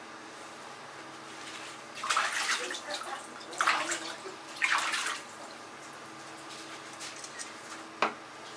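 A knife scraping and slicing along a wet raw fish fillet on a plastic cutting board, in three short wet strokes, then a single sharp tap near the end. A steady kitchen hum runs underneath.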